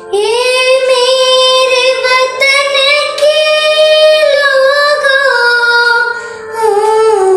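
A young girl singing solo in long held notes that step and slide between pitches, with a brief break about six and a half seconds in.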